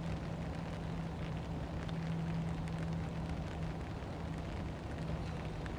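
Wind rumbling on the microphone and rain falling, with a steady low hum underneath.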